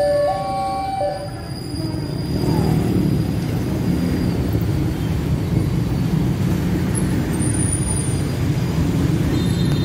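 Level-crossing electronic warning alarm sounding two alternating tones until about a second in. It is followed by a steady, loud rumble of electric commuter trains and waiting road traffic at the crossing.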